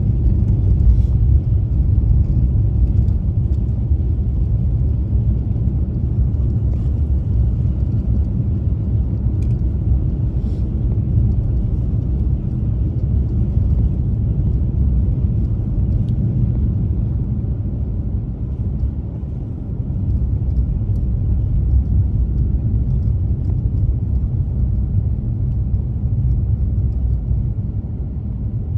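Steady low rumble of a car driving on a snowy road, engine and tyre noise, with a few faint clicks.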